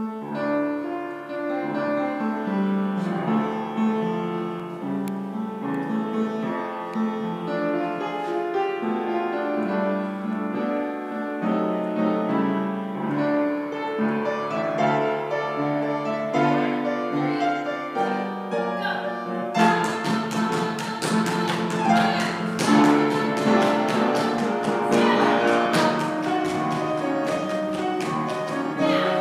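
Piano-led show-tune accompaniment, starting abruptly; from about 20 seconds in it gets louder and busier, with many sharp clicks over it.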